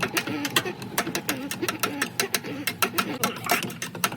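A tool scraping lint off a dryer's blower wheel, giving a rapid, irregular run of sharp clicks, about five a second.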